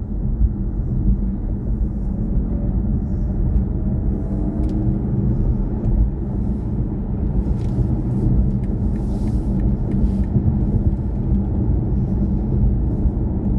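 Steady road and tyre rumble inside the cabin of a BMW i4 M50, an electric car with no engine note. A faint rising whine comes in a few seconds in.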